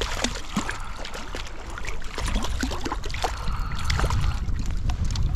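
Wind buffeting the microphone over running stream water, with many short splashes and knocks from a hooked trout thrashing at the surface as it is landed.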